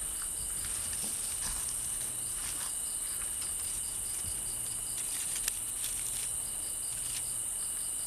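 Night chorus of crickets and other insects: a steady high-pitched drone with a quicker, evenly pulsing chirp over it, and a few faint ticks.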